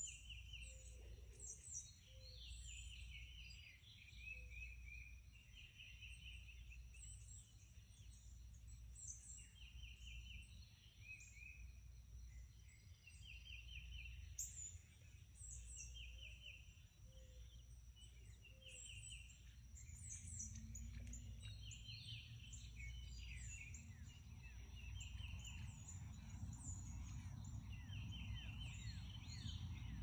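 Faint outdoor chorus of several songbirds: one bird repeats a short trilled phrase every second or two while others chirp higher above it. A steady high whine runs underneath, and a low rumble grows louder over the last ten seconds.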